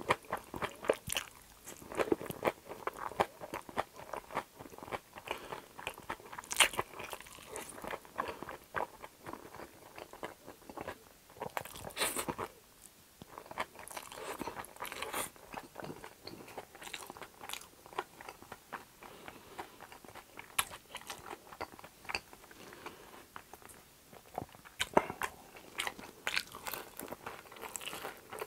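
Close-miked eating sounds: chewy spicy jjolmyeon noodles slurped up in several half-second pulls and chewed with many short wet clicks. Near the end comes crunching from a bite of fried food.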